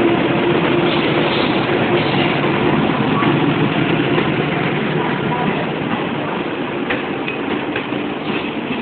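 WAP-7 electric locomotive passing slowly, a steady hum from its blowers and traction equipment, followed by its coaches, with sharp clicks of wheels over rail joints near the end.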